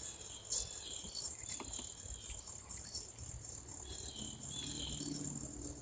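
Steady high-pitched chirring of insects, with small scattered clicks and chirps over it. A low steady hum comes in about four seconds in.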